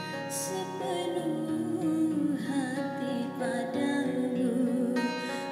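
A woman singing in Indonesian with vibrato, accompanied by an acoustic guitar.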